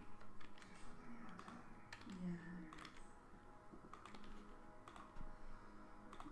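Faint, irregular keystrokes on a computer keyboard as someone types. A short, low murmur from a voice comes about two seconds in.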